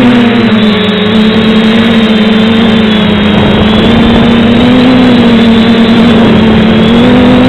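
FPV quadcopter's electric motors and propellers buzzing loudly, heard close up from the onboard camera. The steady hum, with a faint high whine above it, wavers slightly in pitch as the throttle changes.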